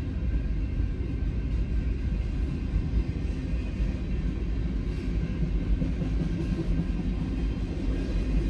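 Intermodal freight train rolling past, its container well cars making a steady, low rumble of wheels on rail.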